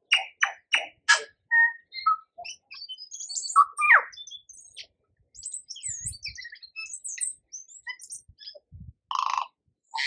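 Tui singing: a few sharp clicks at the start, then a jumble of high whistles and trills with a rising whistled note about four seconds in, and a harsh wheezy burst near the end.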